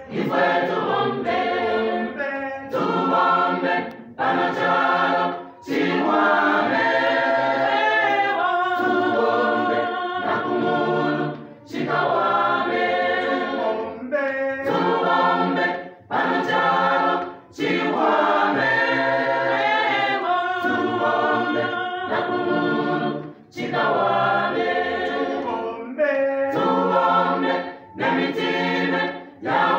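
A church gospel choir, mostly women's voices, singing a cappella in Bemba in short phrases with brief breaks between them.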